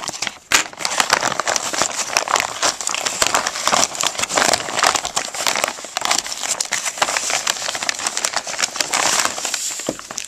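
Delivery packaging being cut and pulled open with a knife: continuous, irregular crinkling and crackling of the wrapping as it is handled and torn.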